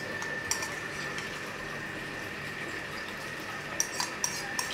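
Metal spoon clinking and scraping against a bowl a few times, mostly near the end, over a steady background hiss with a faint high whine.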